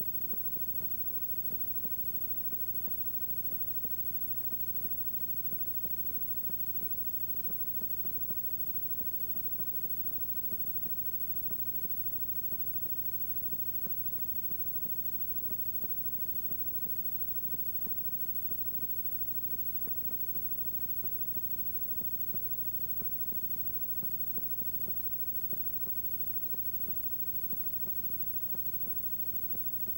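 Steady hum with many overtones and frequent small crackling clicks, with hiss above: the noise of a blank stretch of videotape playing back after the recording has ended.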